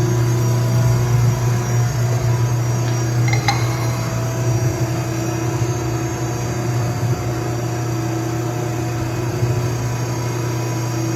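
Edwards hydraulic ironworker's motor and pump running with a steady hum between punch strokes, with a light click about three and a half seconds in.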